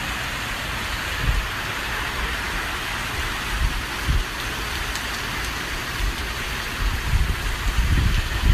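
Heavy hurricane rain pouring steadily, with gusts of wind buffeting the microphone in low rumbles that grow stronger near the end.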